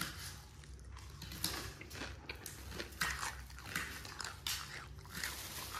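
Small kitchen knife chopping onion on a steel plate: a string of irregular short cuts, the blade clicking against the metal.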